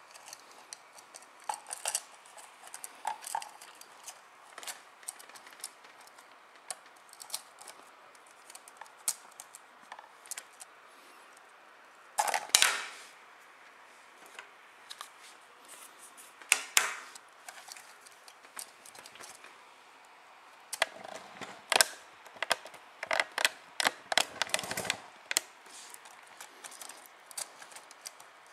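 Small plastic parts of a Canon Vixia HG20 camcorder's opened LCD panel being handled and worked apart by hand: scattered sharp clicks, taps and light scrapes. The loudest come a little before halfway through, and in a dense run of clicks in the later third.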